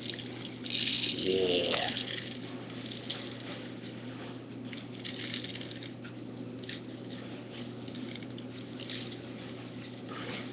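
Rainbow sprinkles pattering and rattling as they are spooned and poured from a plastic bowl onto frosted cupcakes and a metal baking tray. The patter is busiest about a second in, then goes on as fainter scattered ticks.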